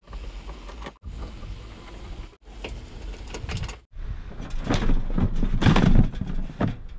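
Black plastic shroud of a Coleman Mach rooftop RV air conditioner rattling and scraping as it is handled and lifted off the unit, loudest a little over halfway through. Wind rumbles on the microphone, and the sound cuts out briefly three times.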